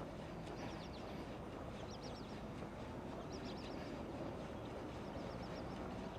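Chirping in short groups of three or four quick high notes, repeating about every second and a half, over a steady low background noise.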